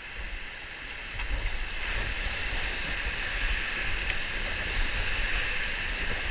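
Whitewater rapids rushing around a kayak, getting louder about one and a half seconds in as the boat runs into a foaming drop, heard close up from the cockpit.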